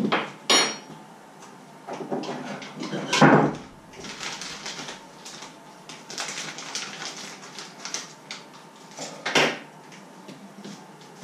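Kitchen handling sounds: a few sharp knocks and clinks of containers and utensils being picked up and set down, one with a brief ringing clink near the start, and a stretch of rustling in the middle.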